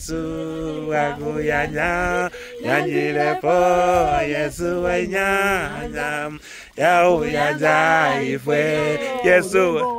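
A group of people singing a song together without instruments, the voices holding long notes and sliding between them.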